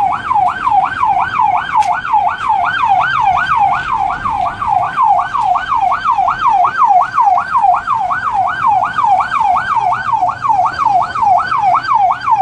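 Emergency vehicle siren in fast yelp mode, rising and falling about three times a second at a steady level.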